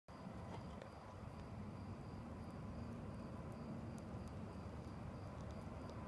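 A night-singing insect chirping in a high, evenly repeating pulse over a low rumble, with a few faint clicks.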